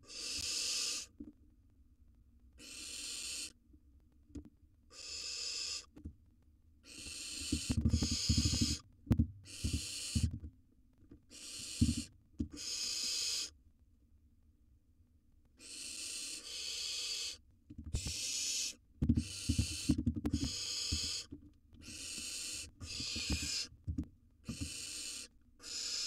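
Barn owl nestlings giving their hissing, snore-like begging calls: over a dozen rasping hisses of about a second each, some overlapping, with a pause of a couple of seconds midway. Soft low knocks and scuffles come in among the calls twice.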